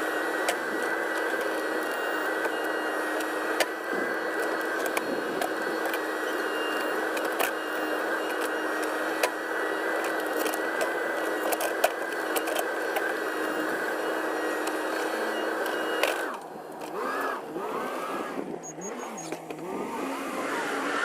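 Case 580 Super N backhoe's diesel engine and hydraulics running under steady load, with a constant high whine and scattered clicks and knocks. Near the end the steady sound drops away abruptly and the engine note rises and falls.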